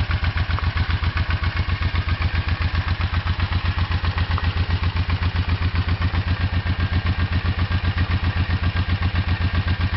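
1985 Honda Shadow VT500C V-twin engine idling steadily, an even run of exhaust pulses about eight a second with no revving.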